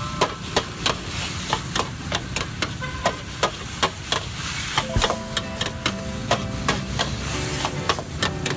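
Metal spatula clanking and scraping against a large flat wok as noodles, vegetables and beef are stir-fried, in sharp irregular clacks two or three a second over a steady sizzle.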